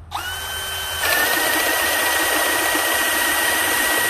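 DeWalt FlexVolt Advantage 20V drill running in speed one on a 6.0Ah FlexVolt battery. The motor spins up with a rising whine, and about a second in the large bit bites into the wooden beam. From there it bores steadily under load with a steady whine, tearing through the wood.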